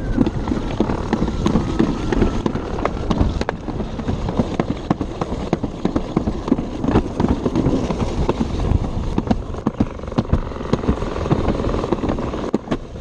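Alpine slide sled running fast down its track: a continuous rumbling clatter of the sled on the chute, full of rapid sharp knocks and rattles.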